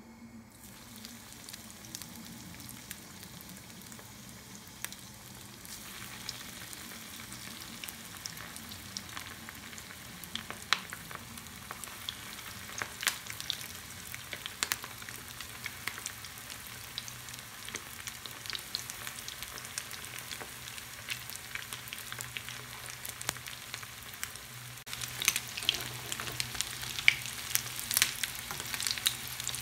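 Vegetable balls deep-frying in hot oil in a pan: a steady sizzling hiss with scattered crackles and pops. Just after the start the sizzle sets in, and near the end it gets louder with denser crackling.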